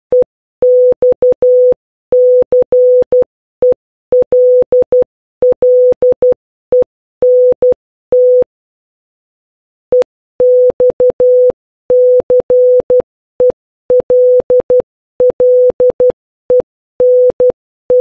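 Morse code sent as a steady tone of about 500 Hz, keyed in short dots and longer dashes that spell the word EXCELLENT. The word is sent twice, with a pause of about a second and a half between.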